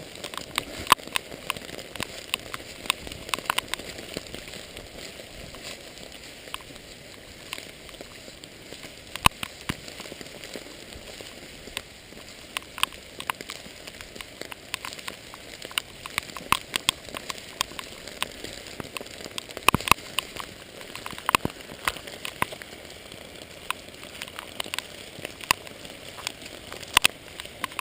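Summer rain falling in a forest: a steady hiss with many irregular sharp taps of individual drops landing close by.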